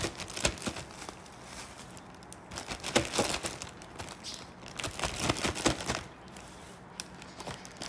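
Plastic bags crinkling and rustling as pieces of raw lamb are handled out of a carrier bag and into a zip-lock freezer bag. The crackling comes in irregular spells: about half a second in, around three seconds, and again between five and six seconds.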